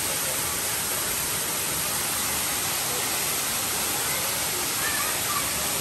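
Steady rush of a waterfall and its stream, with faint shouts near the end.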